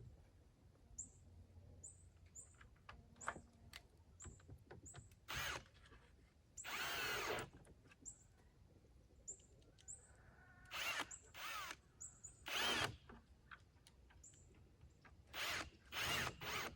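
Cordless drill driving screws into wood to fix a light's mounting bracket, running in several short bursts, the longest about a second.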